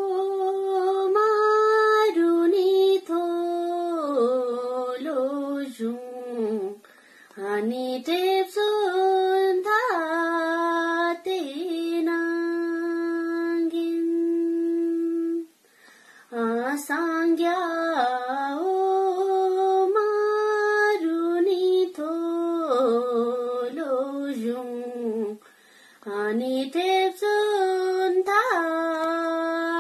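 A young woman singing solo, unaccompanied, an ornamented melody with bending pitch and long held notes, one held steady from about twelve to fifteen seconds in. She breaks off briefly for breath three times.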